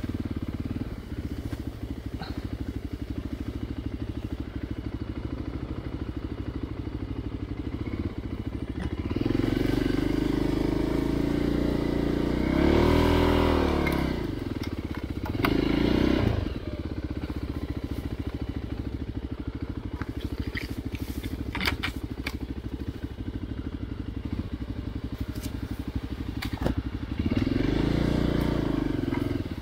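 Single-cylinder trail motorcycle engine running at low revs, with the revs rising and falling twice through the middle and again near the end. A few sharp clicks and knocks come in the latter half.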